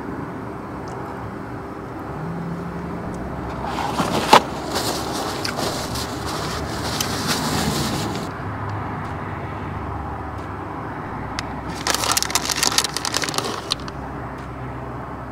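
Plastic bag of shredded mozzarella crinkling as it is handled and the cheese is scattered, in two bouts a few seconds apart, with a sharp click about four seconds in.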